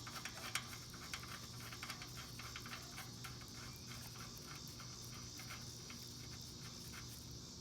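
Insects, crickets by the sound of it, chirping steadily in the background, with faint light clicks and ticks in the first few seconds.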